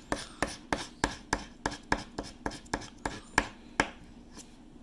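Scratch-off lottery ticket being scratched: short, rapid rasping strokes, about four a second, scrape the coating off the card on a hard tabletop. The strokes stop about four seconds in.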